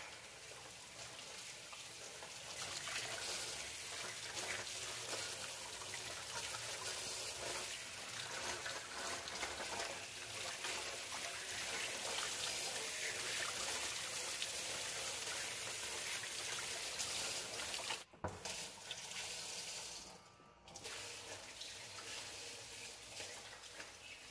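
Water running from a tap into a sink, a steady splashing hiss that cuts out briefly twice near the end.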